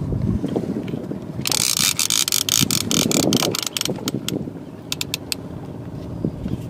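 Fishing reel clicking with a fish on the line. About a second and a half in, a dense run of rapid ratcheting clicks lasts some two seconds, followed by a few scattered single clicks.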